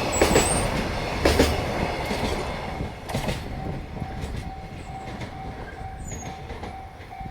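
Wheels of a freight train's Koki container wagons clacking over rail joints. The clatter is loud at first and fades away after about three seconds as the end of the train passes. From about three seconds in, a level crossing warning bell rings, repeating steadily about twice a second.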